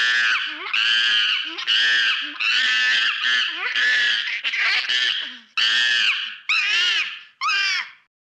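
Angry monkey screeching: a rapid run of about nine loud, high calls back to back, each rising and falling in pitch, stopping near the end.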